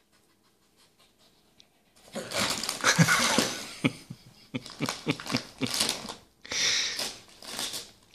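Lhasa Apso dog panting and snuffling with its nose in a gift, working at the shiny wrapping paper, which crinkles and rustles. It comes in three bursts that start about two seconds in.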